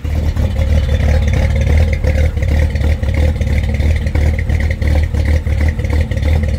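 1954 Chevrolet 3100 pickup's 235 straight-six idling steadily through Fenton headers and dual exhaust.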